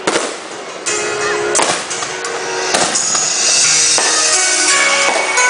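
Firework shells bursting in a run of sharp bangs about a second apart, followed by a dense crackling hiss, with music playing throughout.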